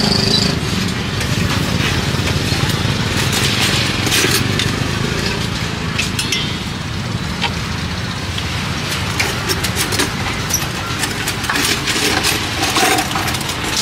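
A motor vehicle's engine running steadily, with scattered clicks and clatter over it.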